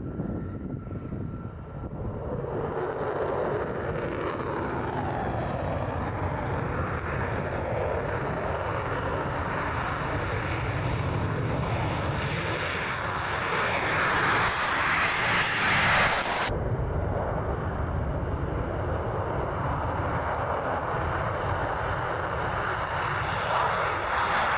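F-35A Lightning II's single Pratt & Whitney F135 afterburning turbofan at takeoff power as the jet rolls down the runway and lifts off: a dense jet roar that grows louder from about two seconds in, with a shifting, sweeping tone as it approaches, and swells again near the end.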